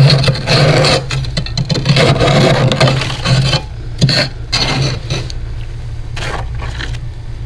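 A metal utensil scraping and chipping built-up frost off a freezer's wall. It makes a rough, continuous scraping for the first three and a half seconds, then a few shorter separate scrapes and crunches.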